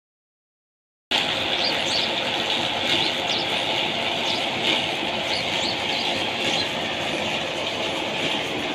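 Belt-driven tube-well pump running: a steady mechanical clatter and whir from the pulley, flat belt and drive, starting about a second in, with short high chirps over it.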